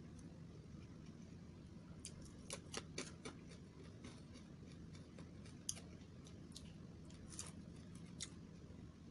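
A person chewing fried duck and rice eaten by hand: scattered short crisp crunching clicks, most of them in a cluster about two to three seconds in, over a low steady room hum.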